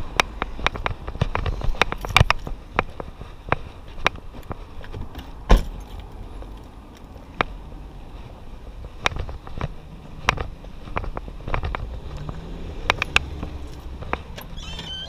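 A bunch of keys jangling in hand with footsteps while walking, over low street-traffic noise. Many irregular sharp clicks, the loudest a single knock about five and a half seconds in.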